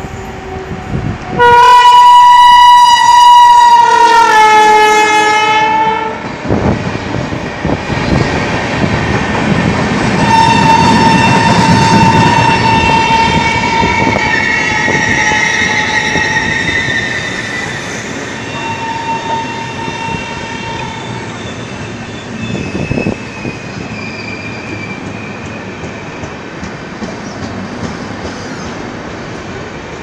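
Indian Railways electric locomotive sounding one long, loud, shrill horn blast for about four seconds, starting a second and a half in, its pitch sagging as it ends. The train then runs past with a steady rumble and clatter of coach wheels, with high ringing tones over it that slowly fade.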